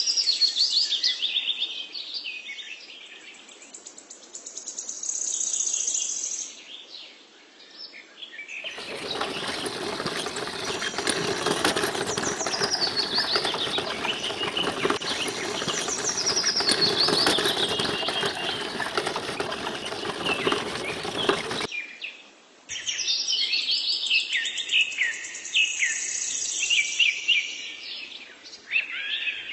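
Small birds chirping and calling, with quick high descending notes. From about 9 to 22 seconds a louder steady hiss with a low hum joins them, starting and stopping abruptly.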